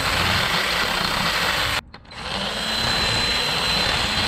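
Power tool spinning a grinding bit inside the bore of a small-engine intake insulator, opening it up to gasket-match it to the carburetor. It runs steadily with a thin whine, cuts out just under two seconds in, then starts up again.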